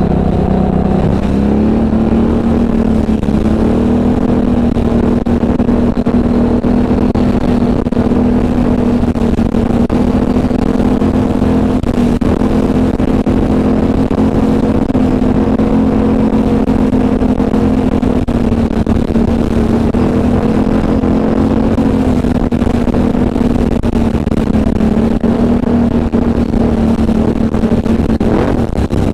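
ATV engine running steadily under throttle. Its pitch climbs about a second and a half in, then holds with small rises and dips as the speed varies.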